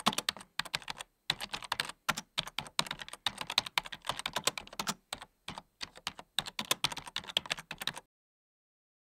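Rapid, irregular clicking of keys being typed, in quick runs broken by short pauses, stopping about a second before the end.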